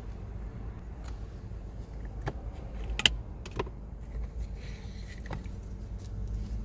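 Scattered light clicks and plastic rattles from handling the old cabin air filter and its housing, the sharpest pair about three seconds in, over a steady low rumble.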